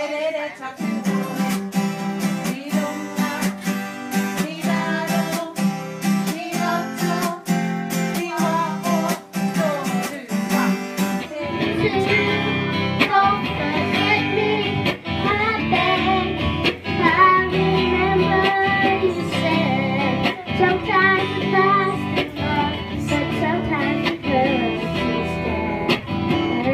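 Acoustic guitar strummed while children sing along. About eleven seconds in it changes abruptly to a live amateur performance: an electric guitar backing a girl singing into a microphone.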